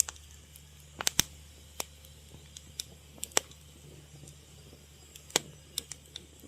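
Fire crackling, with irregular sharp pops and snaps, a few of them loud, over a steady low background.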